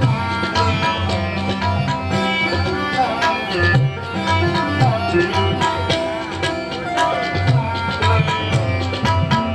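Instrumental Indian film-style music played on a Roland Fantom X6 keyboard: a sustained melodic lead over a steady tabla-style percussion rhythm.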